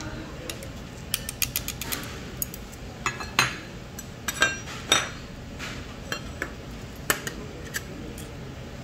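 Metal chopsticks and stainless steel tableware clicking and clinking against a stone soup pot and small side dishes: a scattered run of sharp taps, with the loudest few ringing clinks in the middle.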